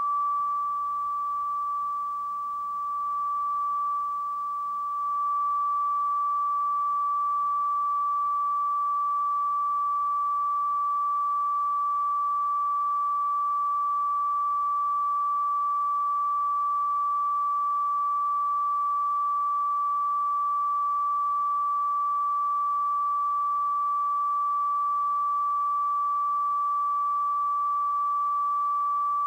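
Television closedown test tone: one steady, unbroken beep at a single pitch, the line-up signal sent with colour bars while the station is off the air.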